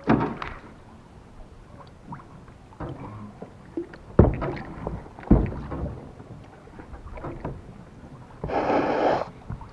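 Knocks and rustles of a fishing rod and baitcasting reel being worked aboard a kayak while jigging. There are sharp knocks at the start and about four and five seconds in, and a short hiss near the end.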